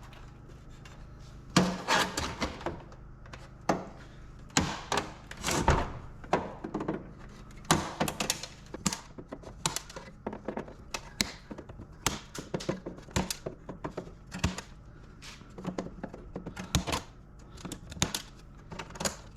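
Irregular clicks, clanks and knocks of hand tools and loose parts against a steel control panel's housing as it is taken apart for scrap, several sharp hits a second at times.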